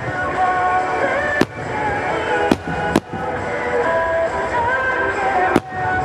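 Aerial firework shells bursting with four sharp bangs, two of them close together near the middle and one near the end, over steady music with long held notes.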